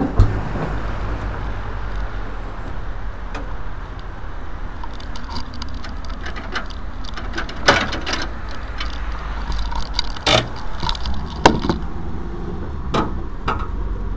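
Lanz Bulldog tractor's single-cylinder hot-bulb engine running as the tractor drives along, a steady low rumble with a few sharp knocks and rattles here and there.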